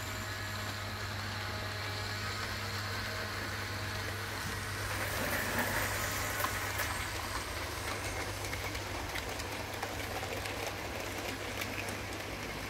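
Model trains running on the layout's track: a steady low hum with the rolling rattle of small wheels on rail and light clicks, swelling a little about five seconds in.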